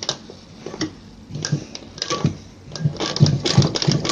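Sewing machine stitching stone-studded lace trim in slow stop-start runs, the needle ticking a stitch at a time. There are a few separate stitches at first, then the runs grow longer and faster near the end.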